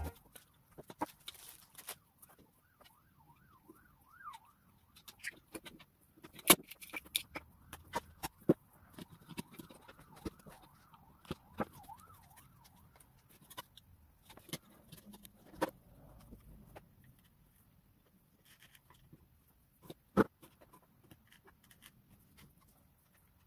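Scattered light clicks and knocks of plastic speaker-mounting parts and tools handled on a workbench, the sharpest about six and a half and twenty seconds in. A faint warbling tone rises and falls a few seconds in.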